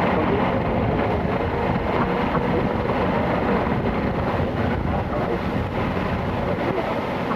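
Steady rumbling noise of a vehicle under way, even and unbroken.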